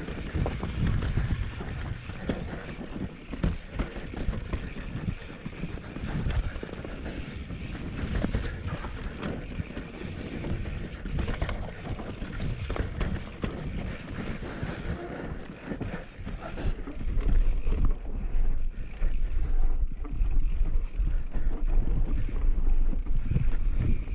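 Mountain bike rolling fast down a dirt trail: tyres running over dirt and leaves, the bike rattling and knocking over bumps, with wind buffeting the camera microphone, louder from about two-thirds of the way in.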